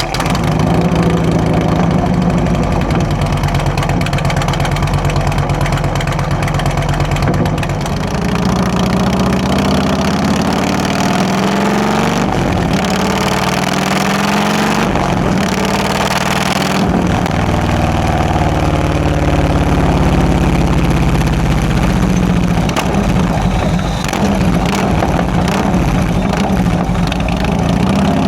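Harley-Davidson Electra Glide's Twin Cam 96 V-twin running through a newly fitted exhaust, idling just after starting, revved up and down a few times in the middle, then settling back to idle.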